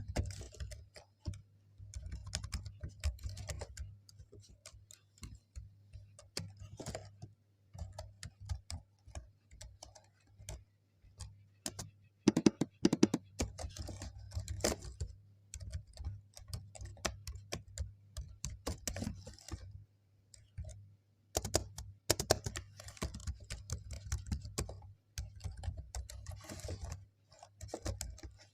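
Typing on a computer keyboard: an irregular run of key clicks, with short pauses between bursts and a louder, denser flurry of keystrokes about halfway through.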